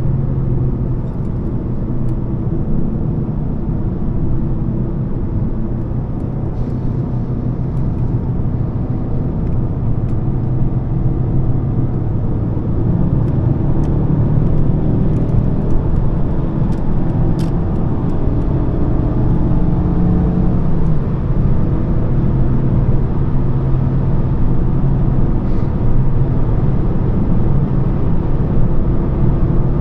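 Volvo S40 2.4i's five-cylinder petrol engine running at a steady cruise, heard from inside the cabin, with a constant rush of tyre and road noise. The engine note rises and falls a little in the middle.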